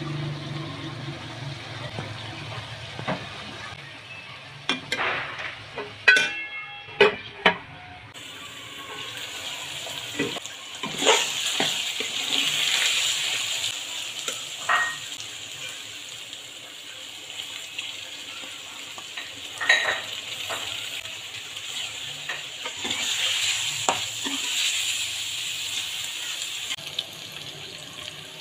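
Diced vegetables frying in an aluminium pot with a steady sizzle that grows stronger after a few seconds, while a metal ladle stirs them and knocks against the pot now and then, loudest in a quick cluster of ringing clinks.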